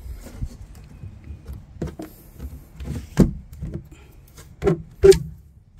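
Knocks and thumps of a boat's hinged deck hatch lid being lowered and shut over the battery compartment, with a sharp thump about three seconds in and two more near the end.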